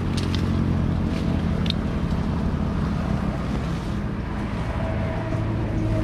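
Swarm of wild honeybees buzzing around their comb as it is cut from a tree branch: a dense, steady buzz.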